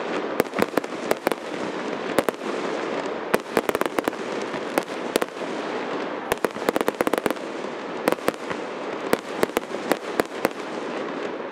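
Aerial fireworks going off: many sharp, irregular pops and bangs, often in quick rattling clusters, over a steady hiss.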